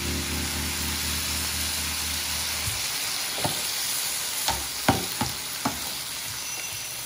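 Food sizzling steadily as it fries in a pan, with a few sharp taps in the second half. Background music ends a little under three seconds in.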